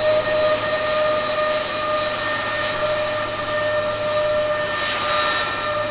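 Lockheed C-5 Galaxy's four high-bypass turbofan engines running at low taxi power: a steady whine of several held tones over a rushing hiss, the hiss swelling briefly near the end.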